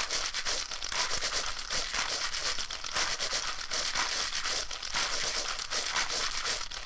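Handled plastic making a dense, continuous crackle of rapid clicks and crinkles.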